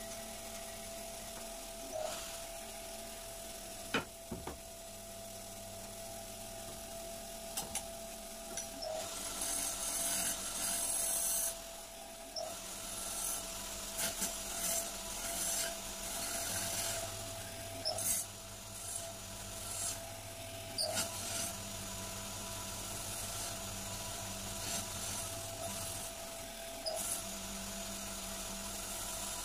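Wood lathe turning a wooden spindle while a hand chisel cuts it, the tool scraping and hissing against the spinning wood in repeated strokes over a steady motor hum. There is one sharp knock about 4 seconds in.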